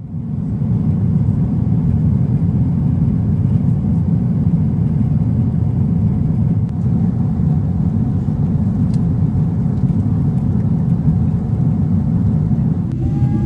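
Steady low roar of a Boeing 777-300ER airliner on approach to landing.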